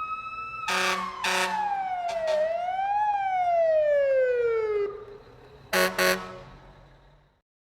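Fire truck pulling up with its siren winding down in pitch, briefly rising once, then falling away. Two short air horn blasts sound over the siren near the start, and two more come near the end before the sound fades out.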